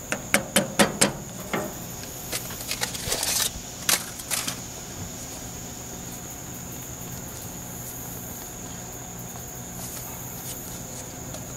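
A wooden spoon knocks several times in quick succession on a metal saucepan, followed by a few more clatters and a short scrape. A steady, high insect trill runs underneath throughout.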